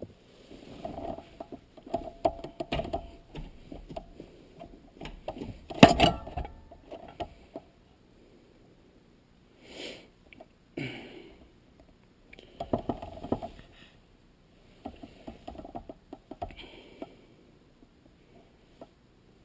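Irregular metallic clinks, knocks and rattles from the stock shifter being worked loose from the top of a manual transmission and lifted off, with one sharp knock about six seconds in.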